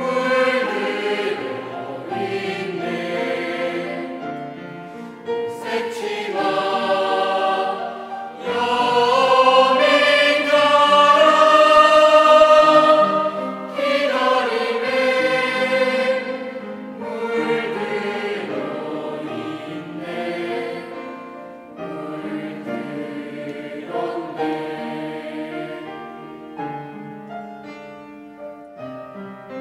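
Mixed middle-school choir of boys and girls singing a Korean choral song in parts with held notes, swelling loudest about 9 to 16 seconds in and growing softer toward the end.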